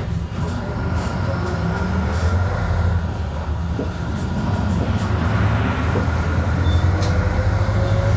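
Volkswagen Volksbus 17.230 OD bus driving, its engine droning low with a whining gearbox over it. The whine rises slowly in pitch in the second half as the bus gains speed.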